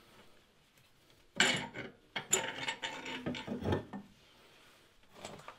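Ratchet wrench clicking in two runs of rapid clicks, the second longer, starting about one and a half seconds in, with a few faint clicks near the end.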